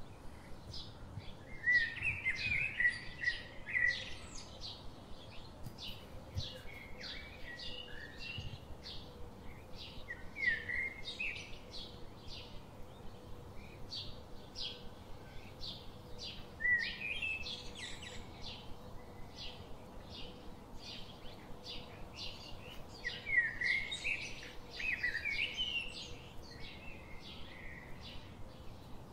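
Small birds chirping in a steady run of short high notes, with bursts of louder warbling song several times.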